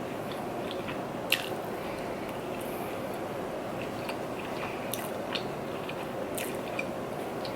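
Close-miked chewing and wet mouth sounds of someone eating, with a few sharp clicks.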